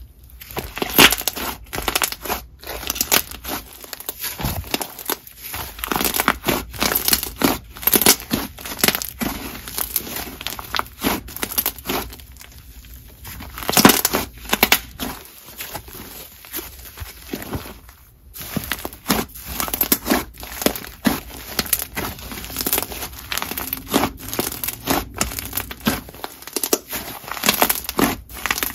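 Textured clay fizz slime with foam chunks being stretched, folded and squeezed by hand, giving dense, irregular sticky crackles and pops, with a louder burst about a second in and another near the middle.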